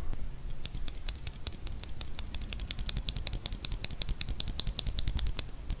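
A single Durock Koala tactile mechanical keyboard switch with a 67 g spring, pressed and released over and over by hand outside a keyboard: a steady run of light, sharp clicks, several a second.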